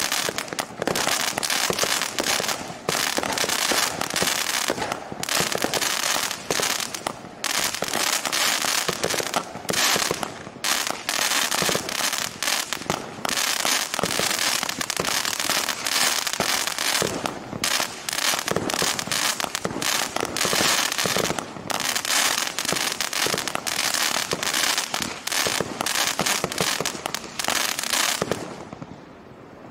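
A 100-shot, 8 mm consumer firework battery cake firing in rapid succession: a near-continuous stream of small launches and crackling bursts, with brief gaps, that stops about a second before the end.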